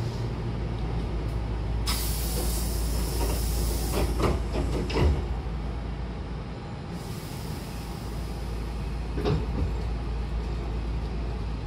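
Train's double sliding doors closing: a sudden hiss about two seconds in, then knocks as the leaves slide shut and meet with a thud about five seconds in. A second hiss follows about seven seconds in and a click near nine seconds, over the stopped train's steady low hum.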